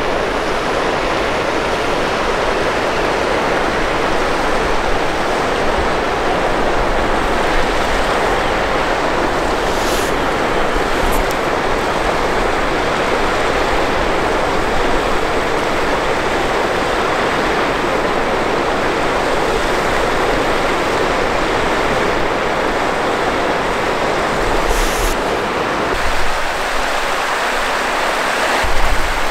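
Steady rush of a mountain creek running over rocks in shallow rapids.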